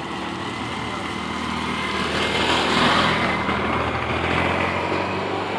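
A motor vehicle's engine passing close by, its sound building to the loudest point about three seconds in and then easing off.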